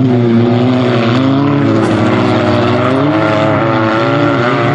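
Dirt-track race car engines revving hard, the pitch rising and falling repeatedly as the throttle is worked through the slides, over a steadier lower engine note.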